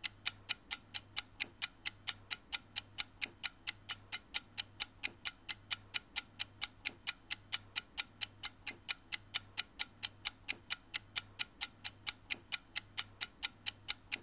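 Even, clock-like ticking of about three and a half ticks a second, over a soft low hum that pulses about twice a second.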